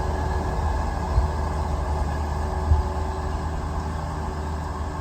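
Diesel engine of a loader running steadily while it spreads and smooths slate fill, with two short knocks about a second and nearly three seconds in.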